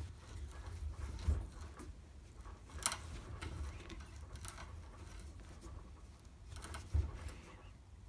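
Bottoming tap being turned by hand with a bar tap wrench in a 3/8-16 hole in a vise-held metal block: faint scraping with a few light metallic clicks and knocks, the sharpest about three seconds in and another near the end.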